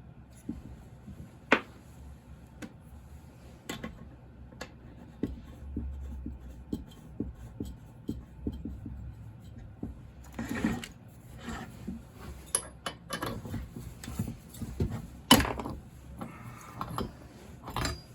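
Hand tools and metal chainsaw parts clicking and knocking on a workbench as the saw's flywheel is worked loose. There are sparse light clicks, a sharp knock about a second and a half in, rattling and handling noise about ten seconds in, and a louder sharp knock a few seconds before the end.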